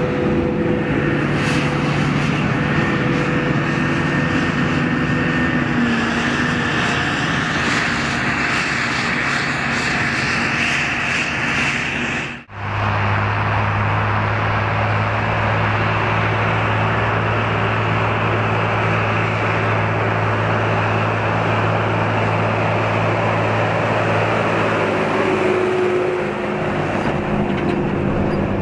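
Claas Jaguar 880 forage harvester running under load, chopping grass and blowing it into a trailer, a steady engine hum with a higher whine. The sound cuts off for a moment about twelve seconds in, and a tractor engine's steady low drone follows as it pulls the silage trailer.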